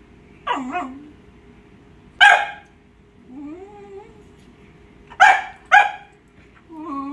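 Cockapoo dog whining in wavering, gliding tones and breaking into sharp barks: one about two seconds in and two in quick succession about five seconds in. It is agitated at squirrels it is watching on screen.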